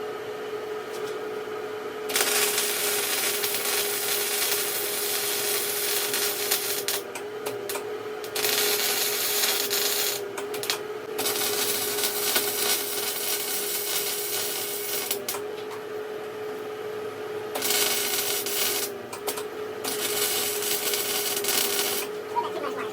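Flux-core wire-feed welding with a Hobart Handler MIG welder run without shielding gas: the arc crackles and sizzles in five runs of a few seconds each, separated by short pauses, over a faint steady hum.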